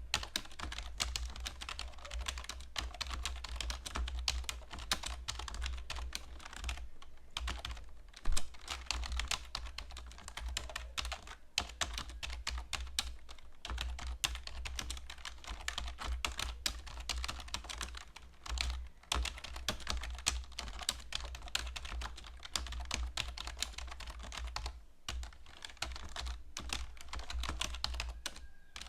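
Fast, continuous typing on a computer keyboard, many keystrokes a second, broken by a few short pauses. One much louder knock comes about eight seconds in.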